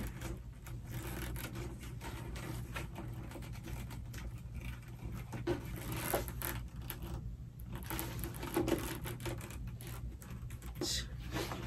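Handling of a Hermès canvas-and-leather handbag: fabric rubbing and rustling, with scattered small clicks from its closure as it is fumbled with to get it open.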